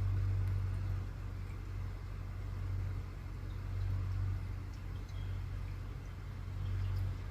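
An engine idling: a steady low hum that swells and eases slowly.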